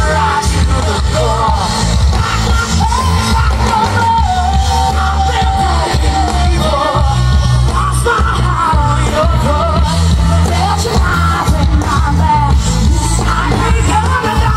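Live rock band playing: a singer's melody over electric guitar, bass guitar and drums, with a strong, steady bass.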